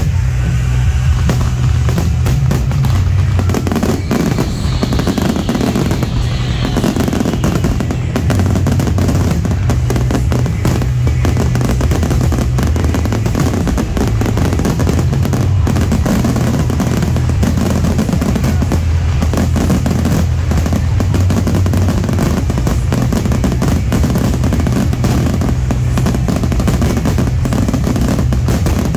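Aerial fireworks shells bursting in rapid, overlapping bangs and crackle, with music playing alongside.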